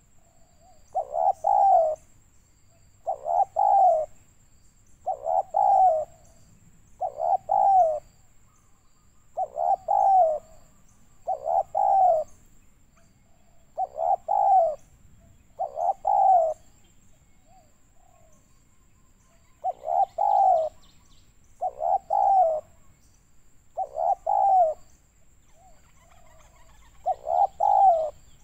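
Spotted dove cooing: a steady series of short multi-note coo phrases, about one every two seconds, with a pause of a few seconds partway through.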